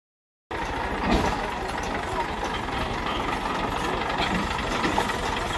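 Farm tractor's diesel engine running steadily as it tows a loaded trolley at walking pace, with a crowd's voices calling over it. The sound starts about half a second in.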